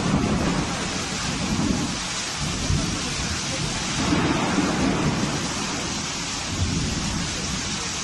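Heavy rain and floodwater rushing along a street: a steady loud hiss with a low rumble that swells and fades several times.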